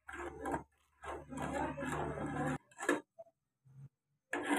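Steel spatula stirring and scraping thick, wet semolina in an aluminium pan, followed by a few light taps and clicks.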